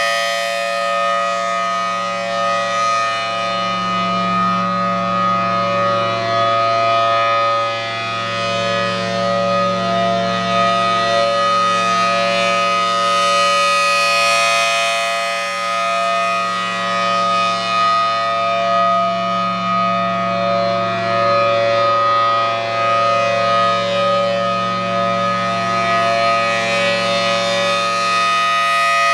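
Federal Signal Thunderbolt 1000T outdoor warning siren sounding a steady full-alert tone at full speed, extremely loud. Its pitch holds steady while the sound swells and fades about every 13 seconds as the horn rotates.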